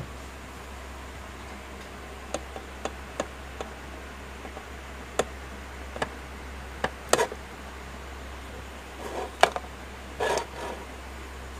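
Scattered small clicks and taps at uneven intervals over a steady low hum, with two brief scuffs near the end.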